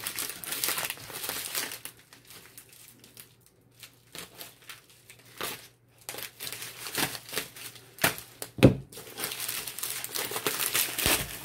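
Plastic Priority Mail mailer crinkling and rustling as it is cut open with a utility knife and handled, with a quieter stretch about two seconds in and one sharp knock near the end.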